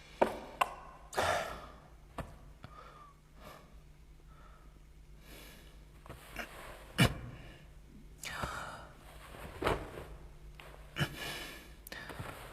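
A person breathing heavily with gasps and sighs, among scattered small knocks and clicks.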